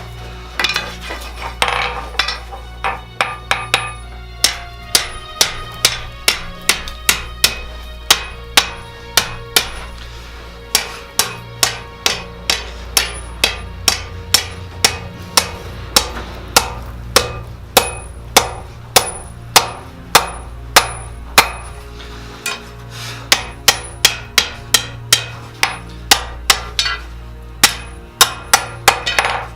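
Blacksmith's hammer striking steel on an anvil in long runs of about two blows a second, each blow ringing briefly, with short pauses between runs. A steady low hum runs underneath.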